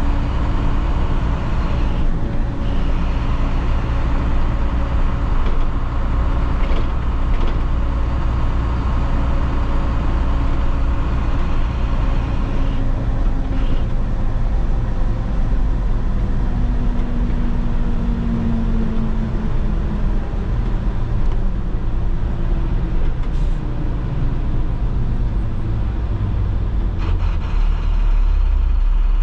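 School bus's MaxxForce DT inline-six diesel running under way, a steady low drone, with the engine note falling slowly over the second half as the bus slows. A few brief clicks sound over it.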